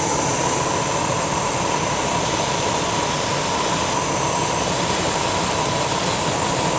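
Giant gas burner's flame rushing at full power while an air blower drives powdered iron into it, the iron burning as a fountain of sparks: a loud, steady rushing noise with a thin high whine in it.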